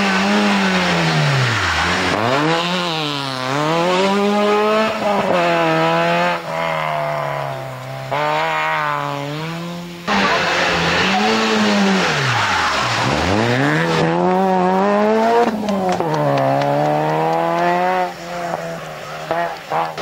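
Rally cars driven hard on a special stage, one after another, with no speech. Each engine climbs in revs and drops back several times as the car brakes and shifts up through the gears, and there is a sudden break about halfway through where the next car takes over.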